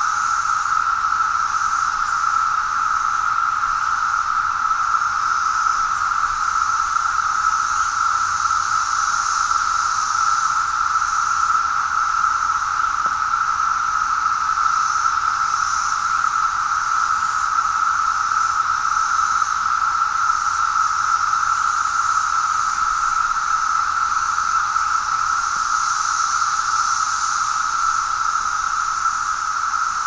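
Dense chorus of 17-year periodical cicadas: one steady, loud, unbroken droning whine, with a fainter high hiss above it that swells and eases every few seconds. The massed sound is almost like a UFO.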